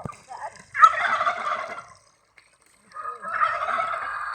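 Turkey gobbling twice: two rattling calls of about a second each, the second starting about three seconds in.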